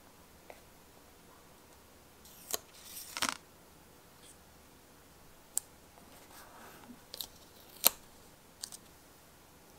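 Small stickers being handled on a paper planner page. A rustling scrape of paper and sticker comes about two to three seconds in, followed by several separate sharp clicks as the stickers are lifted and pressed down with tweezers. The loudest click comes near the end.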